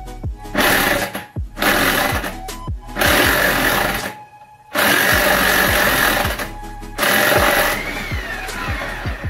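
Impact wrench hammering in about five bursts of roughly a second each, loosening the blade bolts on a Toro Grandstand mower deck.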